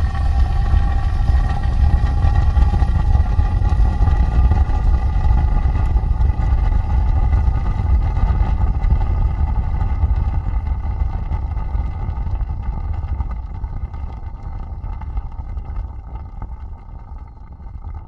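Vacuum pump running steadily with a low rumble and a steady whine, pulling the chamber down far enough that the water in the beaker boils at room temperature. The sound grows gradually quieter over the second half.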